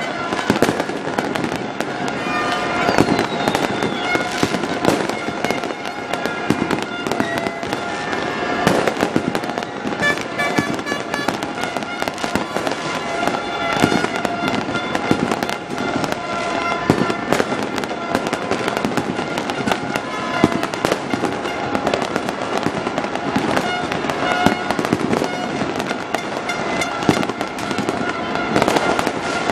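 Fireworks going off in a dense, unbroken run of bangs and crackles, many bursts overlapping with no pause between them.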